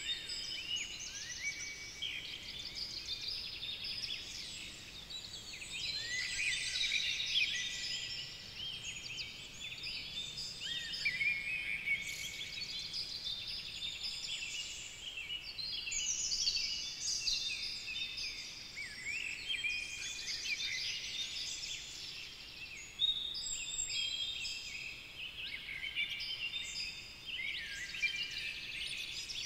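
Many songbirds singing at once: a chorus of overlapping chirps, trills and whistles with no break.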